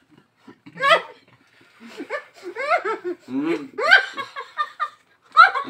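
Several people laughing: a short burst about a second in, then a longer fit of laughter.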